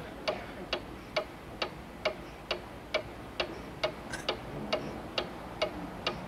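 A clock ticking steadily, about two ticks a second, as the soundtrack of a TV 'please wait' interlude card.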